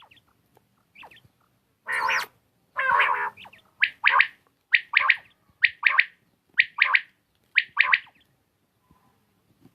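Quail calling: a short noisy burst and a rough, harsh call around two to three seconds in, then a run of six quick two-note calls, about one a second.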